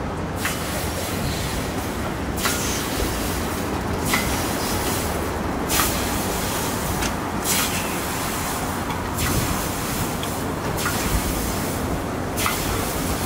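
Okonomiyaki batter sizzling as ladlefuls are spread onto a hot flat-top griddle, a fresh hiss about every second and a half to two seconds, eight in all, over a steady low rumble.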